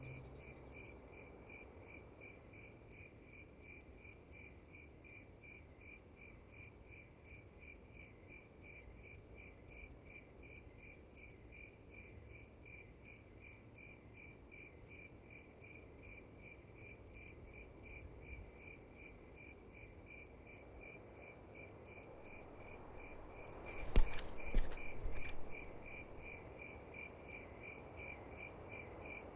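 Crickets chirping in a steady, evenly repeating night chorus, faint and high-pitched. About three-quarters of the way through, a short louder burst with a couple of sharp knocks cuts in for a second or so.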